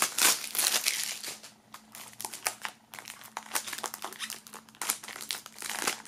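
Clear plastic shrink-wrap film crinkling in irregular crackles as it is peeled off a plastic CD jewel case, busiest in the first second and again just before the end.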